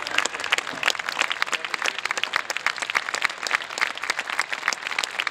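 Crowd of spectators applauding, many hands clapping at once.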